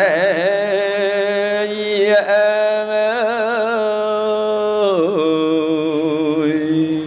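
Khmer smot: a Buddhist monk's solo chanted recitation, one male voice holding long melismatic notes with wavering, trill-like ornaments, the line dipping and breaking briefly about two and five seconds in.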